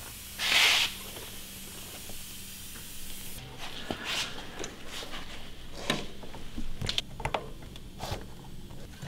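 Compressed air hissing at a fat bike tire's valve from a compressor's air hose, with one loud burst of hiss about half a second in, then a steady fainter hiss. After about three seconds it stops, and light clicks and knocks follow as the wheel is fitted back onto the fork.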